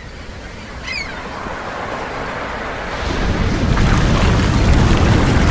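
Ocean surf and wind sound effect, a steady wash of waves that swells into a heavy low rumble about three seconds in. A brief high cry sounds about a second in.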